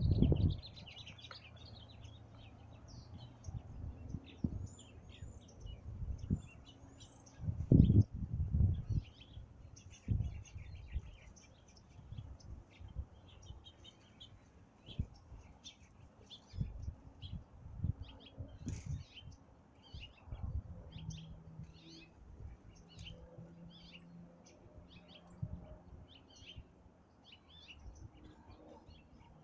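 Small birds chirping, many short quick calls throughout, with occasional low thumps, the loudest about a quarter of the way in.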